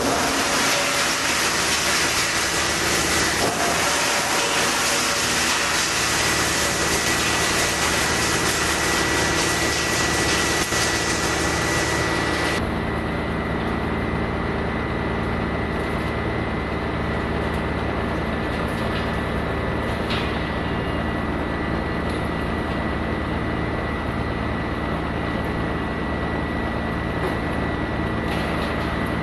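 Large wood chipper-shredder running steadily with a heavy engine hum and a hissing, grinding noise on top. About twelve seconds in, the hiss cuts off abruptly, leaving the machine's hum.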